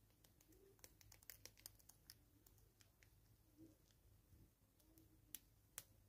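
Near silence broken by faint, irregular small clicks and ticks, most in the first two seconds and two more near the end: a hornbill and a bush squirrel picking at seed on a wooden stump.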